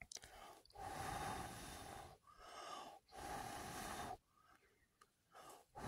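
A person blowing long, steady breaths onto a smouldering ember in a tinder bundle to coax it into flame: about three blows close together, each carrying a steady note, then a pause for breath and another blow starting near the end.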